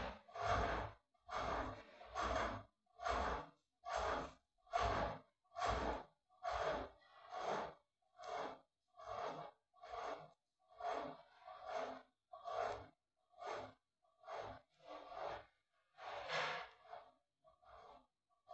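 Heavy, rhythmic breathing close to the microphone, about one breath a second, growing fainter and slower toward the end.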